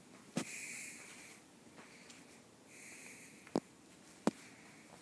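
Faint breathing close to the microphone, two soft breaths about a second long each, with three short light clicks.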